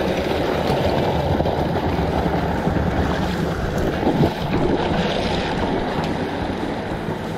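Steady rush of water from a mountain stream at a waterfall, with a brief knock about four seconds in.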